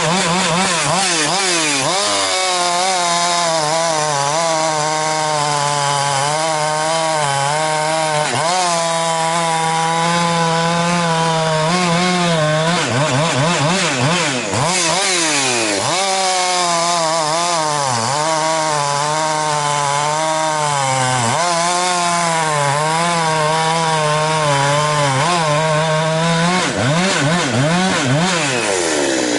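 Two-stroke chainsaw at full throttle cutting through hardwood, its pitch sagging under load in the cut and climbing again as it frees up, several times over. About halfway through it briefly drops in pitch and revs back up.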